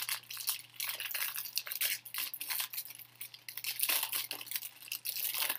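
Trading cards and their pack wrapper handled, with irregular crinkling and rustling in short bursts over a faint steady hum.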